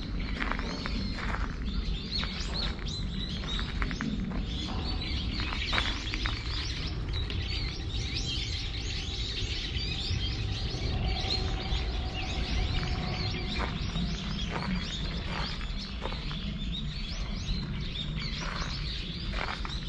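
Small birds chirping repeatedly, many short high calls that thin out in the middle and pick up again near the end, over a steady low rumble.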